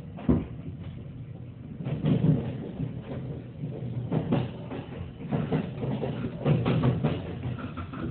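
Irregular knocks and rubbing close to the microphone, from a phone being handled, over the low rumble inside a limited express train car.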